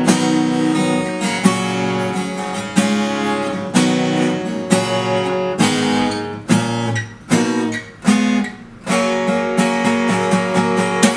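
Acoustic guitar tuned a half step down to Eb, played as a run of strummed chords that ring out between strokes.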